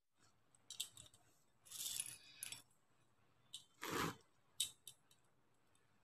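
Faint clicks and rustling of beads and beaded work being handled and threaded, with a soft knock about four seconds in.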